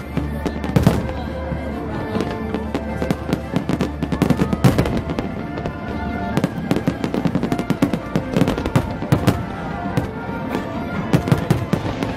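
Aerial fireworks shells bursting in a rapid, irregular string of bangs and crackles, over music with long held notes.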